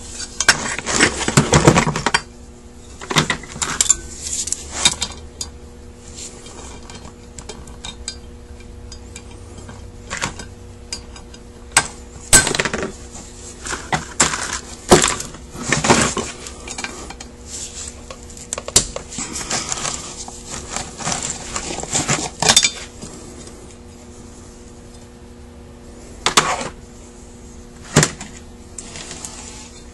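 Metal carburetor parts and hand tools clinking, clattering and scraping against each other and the bench as a Carter WA-1 carburetor is taken apart, in several bursts of handling with quieter gaps between. A faint steady hum runs underneath.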